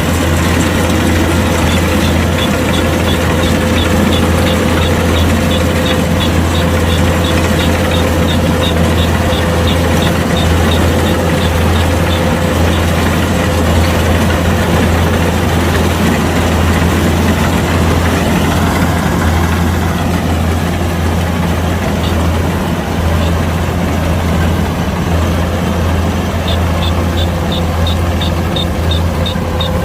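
Kubota DC-105X combine harvester running steadily with a constant low diesel hum. A fast, regular high ticking runs through the first half and returns near the end.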